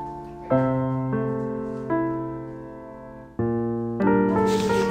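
Background music: slow, soft piano chords, each struck and left to fade, a new chord every second or so.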